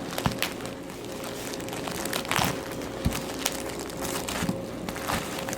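A package being opened by hand: packaging crinkling and rustling in a string of irregular crackles, over a faint steady hum.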